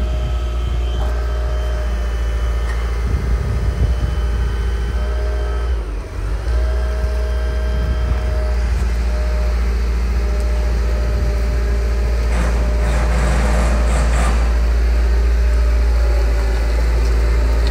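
Liebherr A 309 Litronic wheeled excavator running, its engine steady under a high whine. About six seconds in the pitch and level dip briefly and recover, and from about twelve to fourteen seconds a hissing rush rises over the engine.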